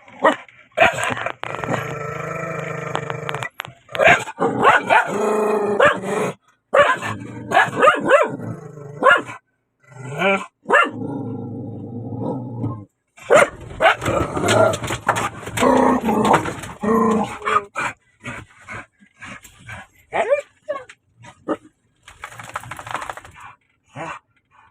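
A dog barking over and over in short calls, with a couple of longer drawn-out cries in between.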